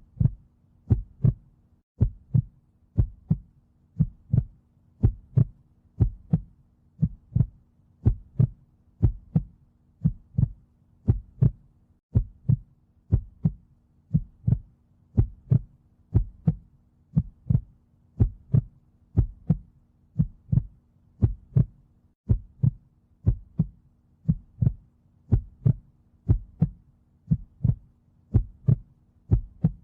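Heartbeat played in a steady rhythm, each beat a double thump, about one beat a second. A faint steady hum lies underneath.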